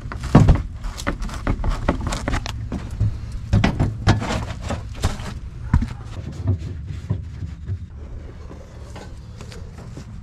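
Hand work taking off a car's rear bumper: a quick, irregular run of clicks, knocks and rattles from a screwdriver and the bumper being handled, thinning out after about six seconds, over a low steady hum.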